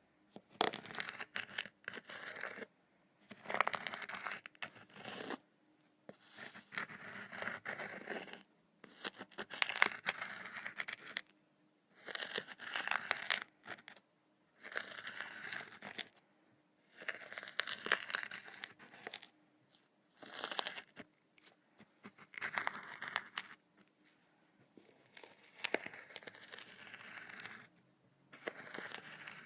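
Kinetic sand crunching and crumbling in about a dozen separate strokes, each a second or two long, with short quiet pauses between.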